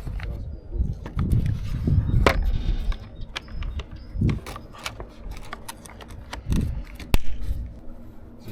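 Hand tools such as sockets and wrenches being handled: irregular metal clicks and knocks, the sharpest about two seconds in and again about seven seconds in, over low rumbling handling noise.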